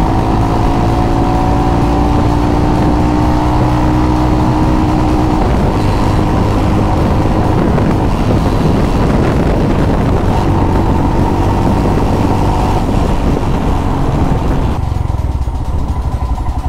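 Royal Enfield Himalayan's single-cylinder engine running at road speed under a steady rush of wind over the microphone, its note climbing slowly in the first few seconds as the bike gathers speed. Near the end the wind rush falls away as the bike slows down.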